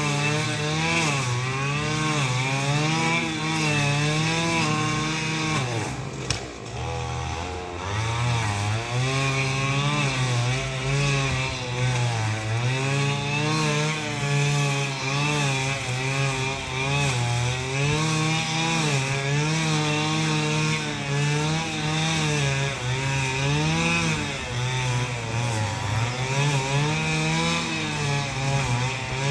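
Small two-stroke power-tool engine running hard, its speed rising and falling over and over as it works under changing load. About six seconds in it briefly drops towards idle, then revs up again.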